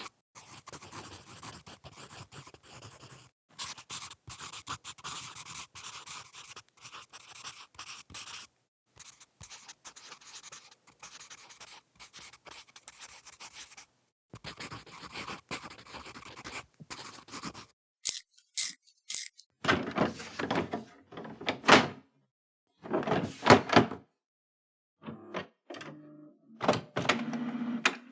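Office sound effects in sequence: about eighteen seconds of fast, dense clicking and scraping, then a run of separate, louder thunks and clatters with short pauses between them.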